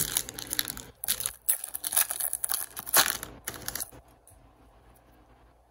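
A trading-card pack wrapper being torn open and crinkled, a run of crackling and tearing that is loudest about three seconds in and stops around four seconds in.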